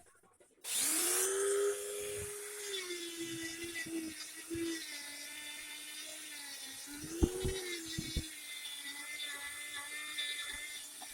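A small electric power tool, such as a drill or rotary tool, starts about a second in and runs steadily, its pitch dropping a little and dipping a few times as it bears on the metal parts of a manual meat grinder being restored.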